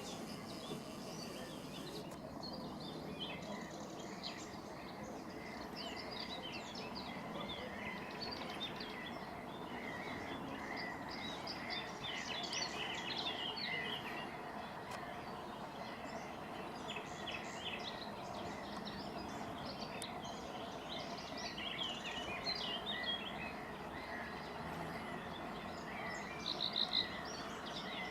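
Many birds calling and chirping at once in a dense, continuous chorus over a steady background noise, with a few louder calls near the end.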